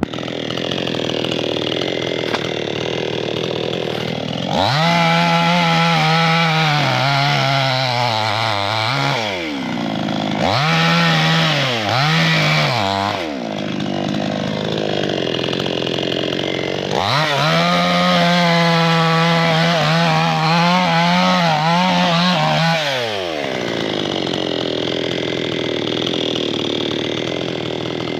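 Chainsaw idling, then revved to full throttle about four seconds in and held for some five seconds. Two short blips follow, then it drops back to idle, runs at full throttle again for about six seconds, and settles back to idle near the end.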